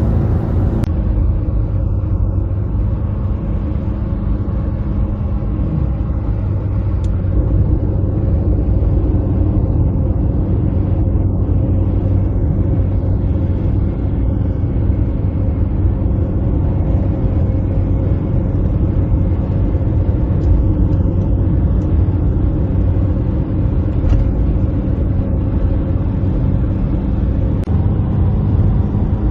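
Car driving at a steady speed: a steady low rumble of engine and road noise, with a low hum.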